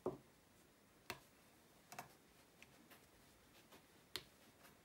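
A few faint, sharp clicks roughly a second apart, the first the loudest: a diamond painting pen's multi-placer tip pressing resin drills down onto the canvas.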